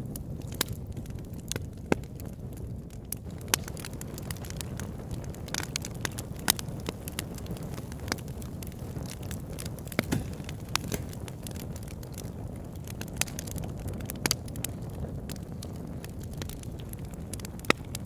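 Steady low rumble with irregular sharp crackles and pops, a few a second, the loudest near two, three and a half, six and a half, ten and fourteen seconds in.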